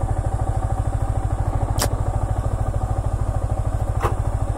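Single-cylinder engine of a Yamaha MT-15 motorcycle idling steadily, with an even, rapid pulse. Two sharp clicks come about two seconds apart.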